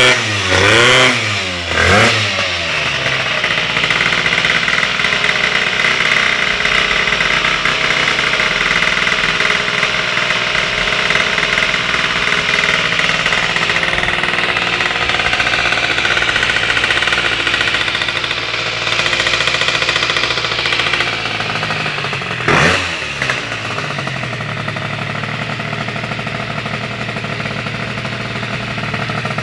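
Tuned two-stroke scooter engine (Peugeot Speedfight with a Malossi MHR Team II stage 6 cylinder kit) blipped in quick revs at the start, then running steadily. About twenty-two seconds in it gets one sharp rev and then settles to a quieter, lower idle.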